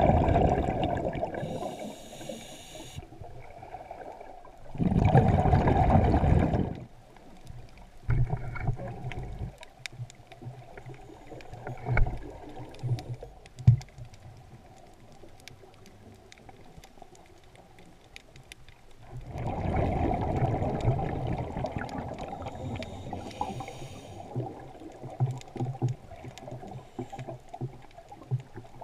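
Scuba regulator breathing heard underwater: a few loud bubbling exhalations, two of them followed by a short hiss of inhaled air, with scattered faint clicks and knocks in between.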